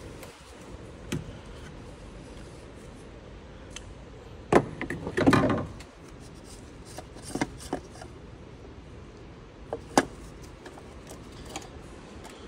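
Tool and hand noises as the top-mounted cartridge oil-filter housing cap of a Hyundai Avante AD 1.6 CRDi diesel is unscrewed and lifted out: scattered clicks and knocks, with a cluster of knocks and rubbing near the middle and a sharp knock about ten seconds in.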